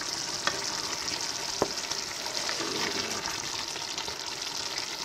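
Thick tomato meat sauce simmering in a pan with a steady sizzling hiss, stirred with a wooden spoon, with a couple of light clicks.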